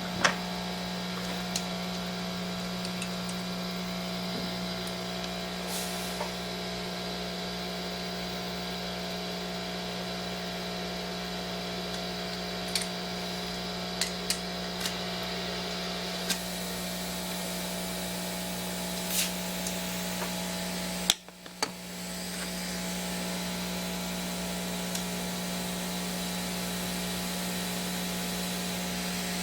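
Yaxun 902+ hot-air rework station running, its built-in air pump giving a steady hum from the vibration of its small air tank. This is the normal running noise of this station. Light metallic clicks come through now and then, from pliers handling the nozzle, and about two-thirds of the way through the sound cuts out for a moment and then comes back.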